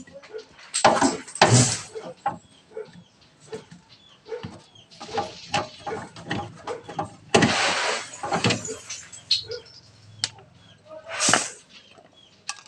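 Irregular knocks, clicks and short scraping sounds from handling the refrigerator shelf and its iron angle brackets during the repair, with a longer scrape about seven seconds in.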